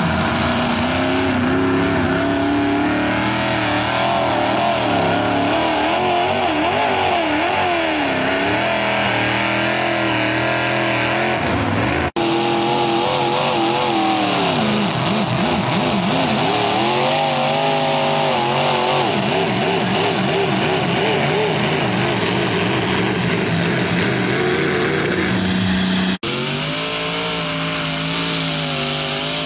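Mini modified pulling tractors' engines running hard under load while pulling a sled. The pitch wavers up and down as the revs rise and fall. It cuts abruptly to a different tractor about twelve seconds in and again near the end.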